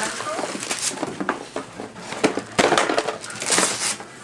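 Gift wrapping paper being torn and crumpled in irregular rasping bursts, loudest in the second half.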